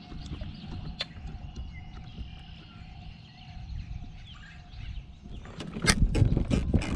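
Faint bird chirps over a low rumble of wind, then a run of clicks and knocks near the end as the camera on its mount is turned around.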